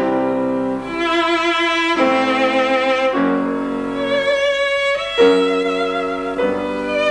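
Violin playing a slow, lyrical classical melody with vibrato, its notes held for a second or two each, over sustained lower notes.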